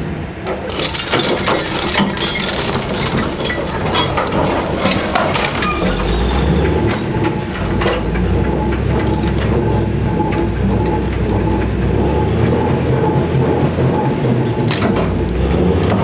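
The Manitowoc 4600 dragline's steel bucket and drag chains are clattering and crunching against broken rock, with frequent sharp cracks, busiest in the first few seconds. Under it, the dragline's engine drones low and grows stronger about six seconds in.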